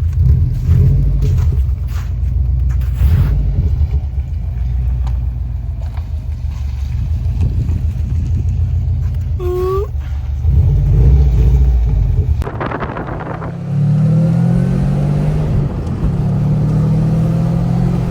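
Subaru STI's turbocharged 2.5-litre flat-four running through a freshly fitted HKS aftermarket exhaust with a deep rumble, surging briefly near 11 seconds. About 12.5 seconds in the note changes to a steadier engine tone with faint rising pitches over it.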